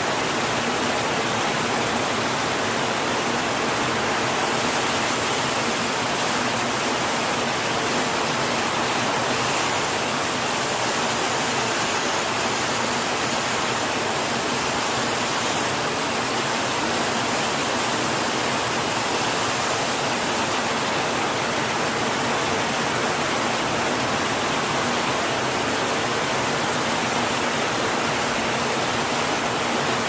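Heavy rain falling steadily, a dense even hiss. The high part of the hiss is a little stronger for about ten seconds in the middle.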